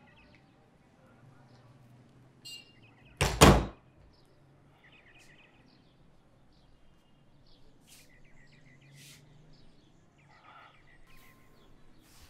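A room door swung shut with one loud, heavy thud about three seconds in, followed by faint scattered chirps and small clicks.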